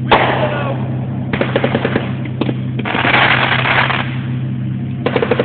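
Large multi-shot consumer firework cake ("American Power", sold as 119 shots) firing in quick volleys of sharp reports, like rapid gunfire. A dense burst comes about three seconds in, and another volley near the end.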